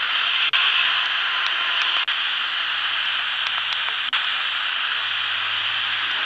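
Radio receiver hissing with static on an empty frequency between stations. The hiss cuts out briefly three times as the receiver is stepped through the band.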